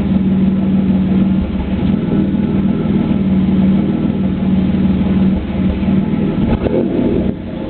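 Camaro's 3.8-litre V6 idling, with the exhaust note breaking up now and then: a misfiring cylinder caused by a bad spark plug. The steady hum turns unsettled about five and a half seconds in.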